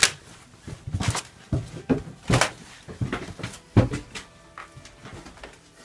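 Booted footsteps climbing wooden stairs: a run of heavy thuds, one about every half second to second.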